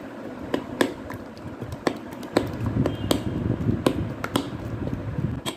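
Kitchen handling sounds: irregular sharp clicks and taps with some wet squishing, as food is worked by hand.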